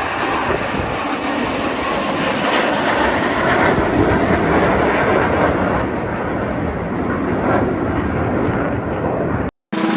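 Aircraft engine noise: a loud, steady rush with no clear pitch. Its high end dulls from about six seconds in, and it cuts off suddenly near the end.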